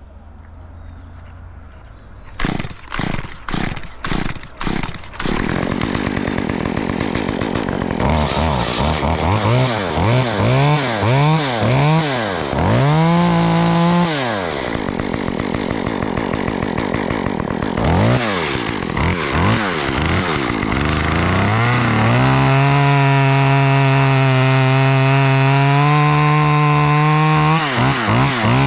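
Two-stroke chainsaw being pull-started, about six quick pulls before it catches. It is then revved up and down several times, and held at high revs for several seconds near the end before dropping off.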